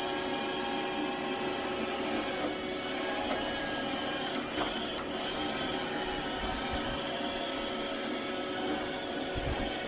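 Robot vacuum running on carpet while edging along the base of a sofa: a steady motor whine with several held tones over brush and suction noise, with a couple of soft low thumps in the second half.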